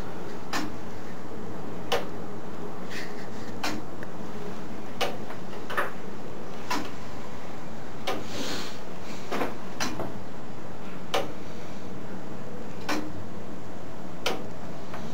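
Ticking of an 1850s three-train turret clock movement: sharp ticks of the escapement about once a second, not quite evenly spaced, over a steady background hum.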